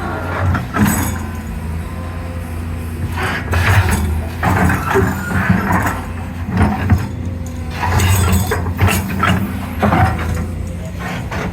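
Hydraulic excavator's diesel engine running steadily, with irregular metallic clanks and knocks from the boom and bucket joints. The play in the joints is put down by the owner to worn pins, worn bushings or both.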